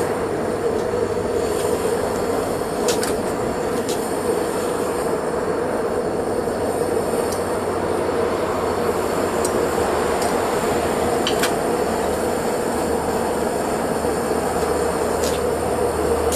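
Gas burner of a small metal-melting furnace running steadily, a constant rush with a strong hum in the middle range. A few faint light clicks sound now and then as the crucible is handled.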